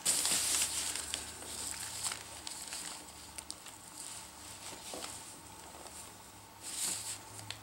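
Rustling and crinkling of silicone-coated nylon tarp fabric as hands smooth and fold it at the sewing machine, loudest in the first second and again near the end, with a few faint clicks.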